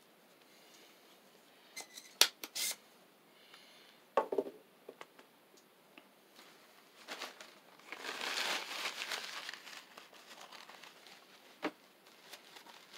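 Handling noises of soldering tools on a wooden table: a few sharp clicks, a knock, a few seconds of rustling, then one more click, as a solder pump is set down and the soldering iron is lifted from its stand.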